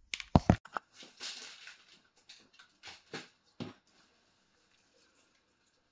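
Plastic parts of a Lechuza self-watering planter being handled and fitted: several hard knocks and clicks, with a short rustle about a second in, and quiet after about four seconds.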